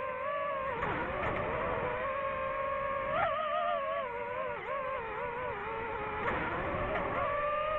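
DJI FPV drone's motors and propellers whining, the pitch holding steady and then sliding up and down as the throttle changes.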